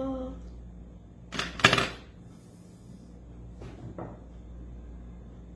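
The last sung note of a child's unaccompanied nasheed cuts off, then a pair of short, loud knocks or scrapes about a second and a half in and two fainter ones around four seconds, over a low steady hum.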